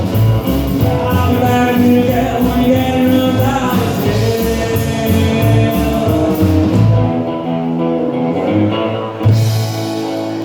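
Live rockabilly band with vocals and guitar playing out the end of a song over a driving beat. The drums drop out about seven seconds in, and a final chord is struck near the end and rings on.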